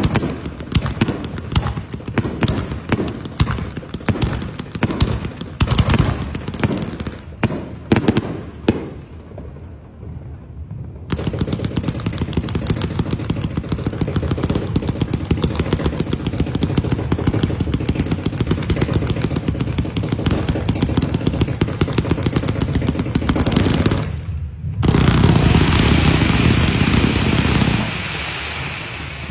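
Strings of firecrackers going off in rapid crackling volleys: fast cracks that thin out after about eight seconds, a short lull, then a long unbroken rattle of very quick bangs, a brief break, and a louder, denser burst that fades near the end.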